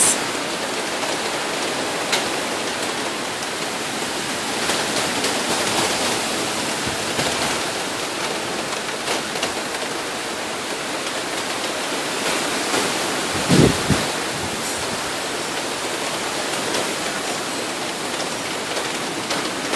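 Steady heavy rain and wind of a hurricane, a constant rushing hiss with a few sharp taps of drops, and a low thump about two-thirds of the way through.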